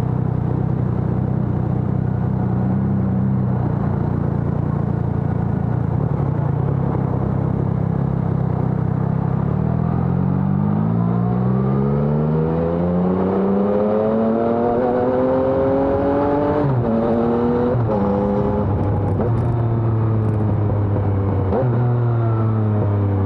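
2020 Yamaha XSR900's inline-three engine through a LeoVince Evo One full exhaust system, at a steady cruise for about ten seconds, then accelerating with revs rising for about six seconds. Quick upshifts follow, each a sudden drop in pitch, and it settles to a steadier, lower note near the end.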